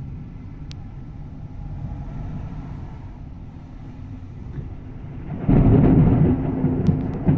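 Thunder: a low steady rumble, then about five and a half seconds in a sudden loud thunderclap that keeps rumbling.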